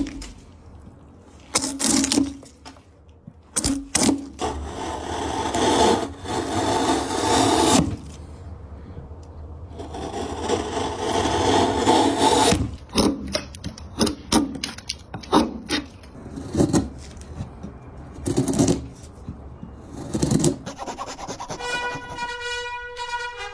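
Wood being worked: long scraping and rubbing strokes broken by sharp knocks and cracks. Near the end, music with sustained horn-like notes starts.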